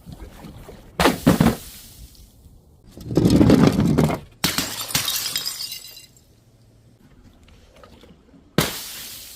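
Glass bottles breaking: four separate sudden smashes, the middle two drawn out over a second or so.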